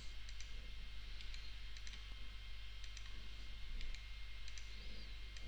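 Faint computer mouse button clicks, about half a dozen, mostly in close pairs, over a low steady electrical hum.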